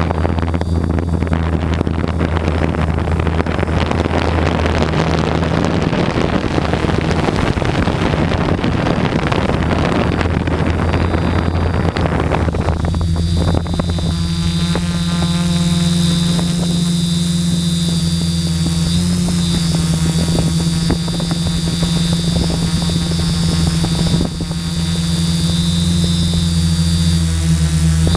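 A quadcopter's brushless motors and propellers running steadily: a constant low hum with a high motor whine above it. For about the first half a rushing air noise covers it, then it drops away and the hum and whine are heard clearly.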